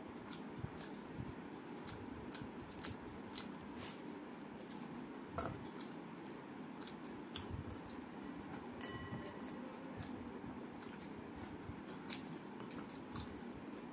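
Hand-eating sounds: fingers squishing and mixing rice with dal on a steel plate, with soft chewing and scattered small clicks, one a little louder about five seconds in.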